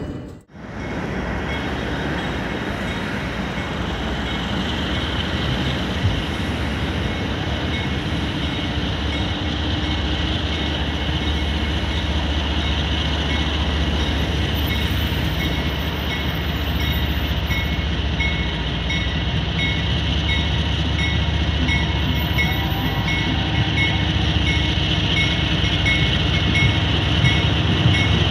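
Freight train's diesel locomotives approaching slowly, engines running with a steady low rumble that grows gradually louder as the train comes closer.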